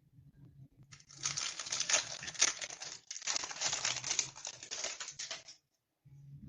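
Foil booster-pack wrapper of trading cards crinkling as it is handled and opened, in two bursts of a few seconds each.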